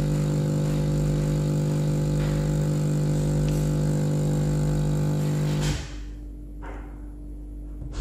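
Nespresso Lattissima One coffee machine's pump running with a steady loud hum while the coffee shot flows into the cup. It cuts off suddenly nearly six seconds in as the shot ends.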